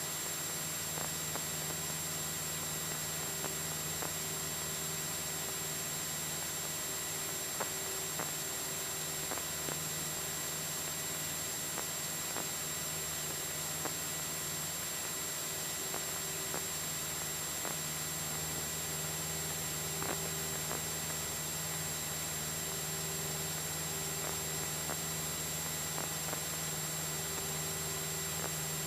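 Steady drone and hiss inside a Cessna 172SP's cockpit in flight, the engine and propeller heard muffled under an even hiss with a constant hum, and a few faint ticks.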